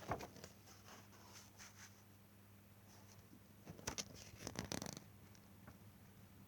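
Near silence: faint room tone with a low steady hum, broken by a few soft clicks and rustles at the start and again about four seconds in.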